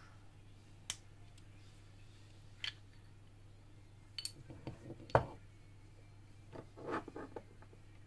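Scattered light metallic clicks and clinks of a Kromer Protector lock being taken apart by hand, its brass wafers worked out of the lock body, with one sharper knock about five seconds in and a short run of clicks near the end, over a faint steady hum.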